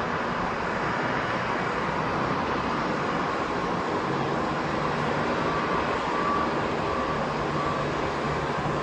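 Jet engines of a Qantas Boeing 737-800 landing and rolling out on the runway: a steady rushing noise, with a low hum and a faint whine coming in about halfway through.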